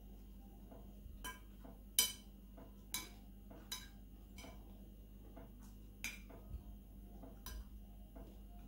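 Metal spoon and fork clinking and scraping against a ceramic plate of rice: about half a dozen sharp clinks, the loudest about two seconds in, with fainter taps between.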